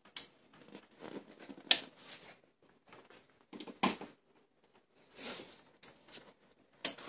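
Scattered clicks and brief rustles, irregular and with quiet gaps between them: handling noise from a handheld camera being moved about.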